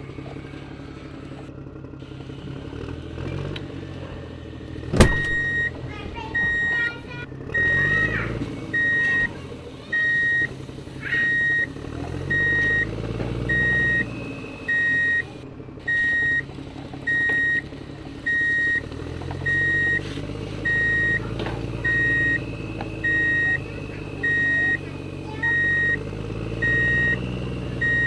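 Electronic reversing-style beeper on a battery toy construction truck, starting with a click about five seconds in and then beeping at one steady pitch about once every second, over a low, wavering motor-like hum.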